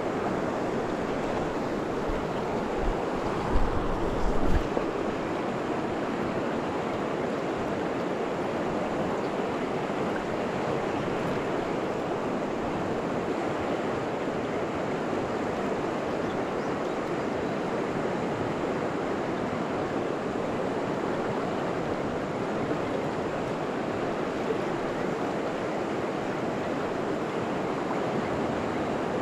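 Steady rush of fast river rapids, with a few low thumps about three to four seconds in.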